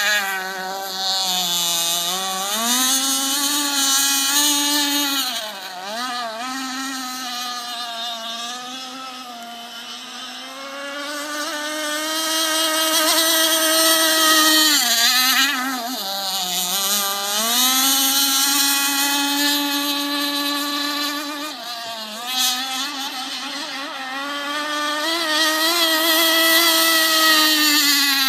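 Radio-controlled catamaran speedboat's motor running at speed as a high-pitched drone. It drops and climbs in pitch several times as the throttle is eased and opened again.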